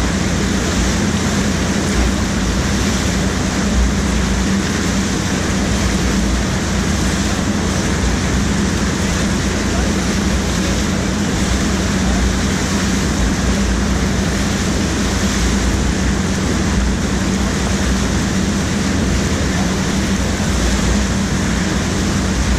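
Steady loud rush of churning water from an artificial standing surf wave, with a steady low hum underneath.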